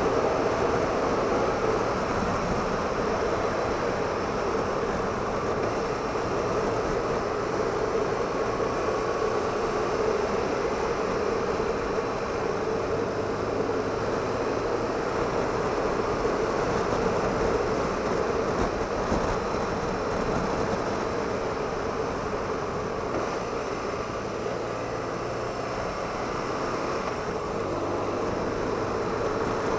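BMW R1200RT motorcycle riding at steady road speed: its flat-twin boxer engine running evenly under wind rush.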